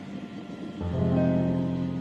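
Soft instrumental background music: sustained notes die away, and a new chord comes in just under a second in.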